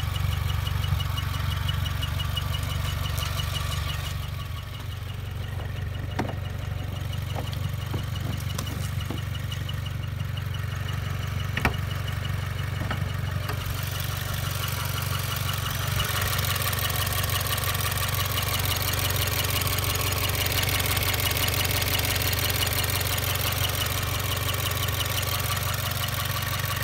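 2016 Subaru WRX's turbocharged flat-four idling, with a fast, steady, high-pitched chirping that grows louder in the second half and a few light clicks. The chirp comes with the clutch pedal up once the engine is warm; the dealer blamed a dry clutch master/slave cylinder pushrod boot, but greasing it has not cured it.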